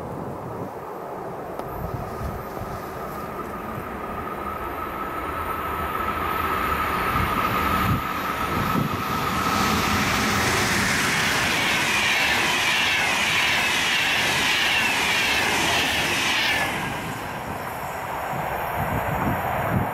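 Sr2 electric locomotive and InterCity passenger coaches approaching and passing at speed. A steady high rail tone grows as it nears, then loud wheel-and-rail rushing for about seven seconds, which cuts off sharply as the last coach goes by.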